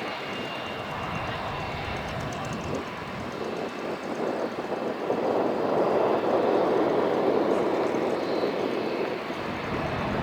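Jet aircraft engine noise, a steady rush that swells about halfway through and eases off near the end.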